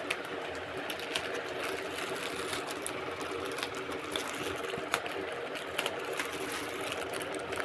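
Plastic courier mailer bag crinkling, with scattered crackles as a pen is pushed into it to tear it open, over a steady background hum.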